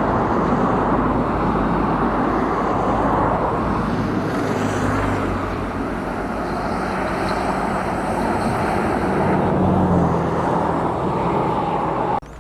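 A motor vehicle running steadily and close: a low engine hum under loud rushing road noise, which cuts off abruptly near the end.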